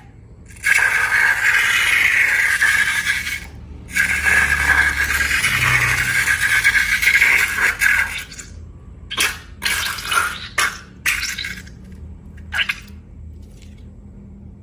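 Liquid pouring in two long steady streams, then several short spurts as the flow breaks up and stops, typical of runny slime ingredients emptied from balloons into a bowl.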